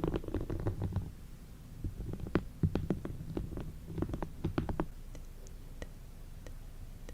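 Close-miked ASMR tapping and scratching. A dense low crackle in the first second gives way to scattered sharp clicks and taps, which thin out to a few faint ticks near the end.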